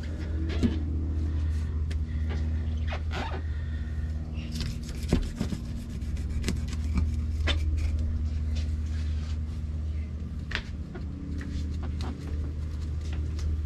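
A fillet knife cutting and scraping along a permit on a cleaning table, with scattered short clicks and scrapes, over a steady low hum.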